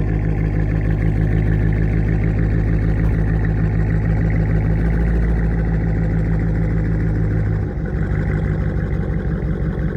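Cadillac Escalade ESV's 6.2-litre V8 with the mufflers deleted, heard from inside the cabin while driving: a steady low engine note that drops a little and changes pitch about three-quarters of the way through.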